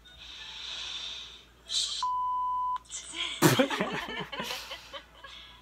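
A censor bleep: a single steady beep tone lasting a little under a second, about two seconds in, after a short breathy hiss. Loud laughter follows from about three and a half seconds in.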